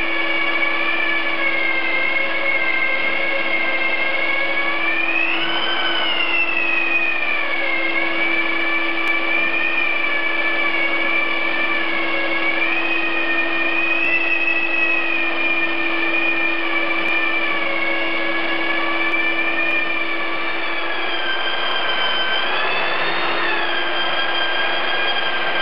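Long-reach drywall sander running on a gypsum-plastered ceiling together with the dust extractor it is hosed to: a steady machine drone with a high whine that rises briefly about five seconds in and again near the end.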